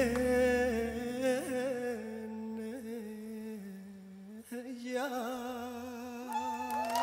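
A man singing live in a flamenco-tinged style, holding long notes with vibrato and ornamented turns over a sparse accompaniment. The low backing drops away about a second in, leaving the voice nearly alone, and he breaks off briefly a little past halfway before carrying the line on.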